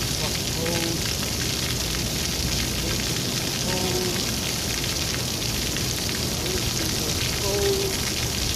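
Steady hiss of running water spraying without a break.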